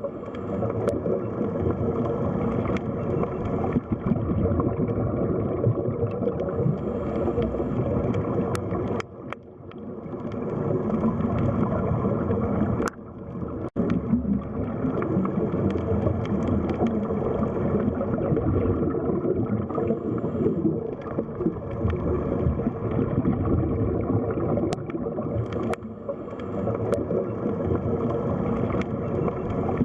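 Underwater sea ambience: a dense, low rush and gurgle of water that runs on steadily, with brief dips about nine and thirteen seconds in.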